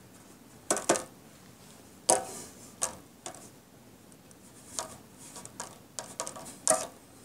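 About ten light, irregular taps and clicks as the plastic tip of a small ink bottle is dabbed onto cardstock lying in an enamelware pan.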